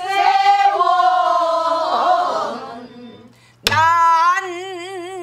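A woman singing pansori, holding long notes with a wide, wavering vibrato, while beating a buk barrel drum herself. The voice breaks off about three seconds in, and one sharp drum stroke lands as she resumes singing.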